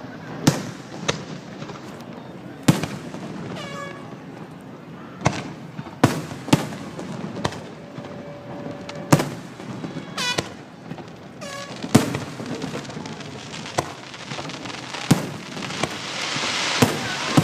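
A fireworks finale: about fifteen aerial shells bursting with sharp booms at irregular intervals, some close together. A crackling hiss builds near the end.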